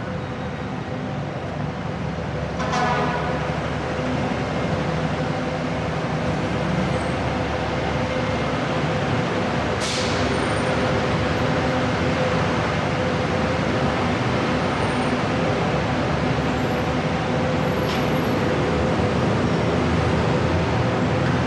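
Steady city road-traffic noise from buses, cars and motorbikes on a busy multi-lane road. A short pitched sound comes about three seconds in, and sharp brief sounds come at about ten and eighteen seconds.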